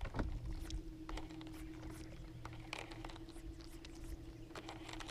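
A short falling whir near the start, then the steady hum of a bass boat's electric trolling motor, with scattered light clicks from the baitcasting reel and rod as the bait is retrieved.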